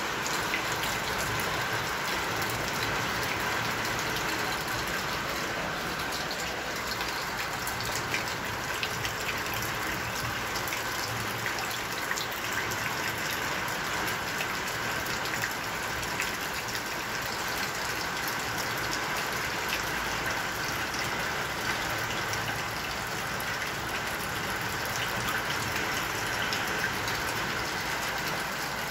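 Steady rushing of water, with a faint patter of drops throughout, like heavy rain or water running.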